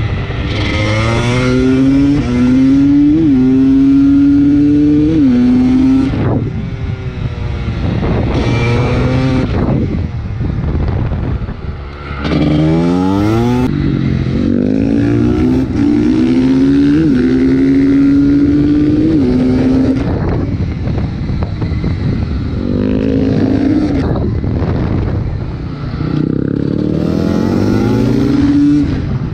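TM Racing 300 cc two-stroke supermoto engine heard from on the bike, revving hard through the gears. Its pitch climbs, dips briefly at each upshift, falls away when the throttle closes for corners, then quickly climbs again.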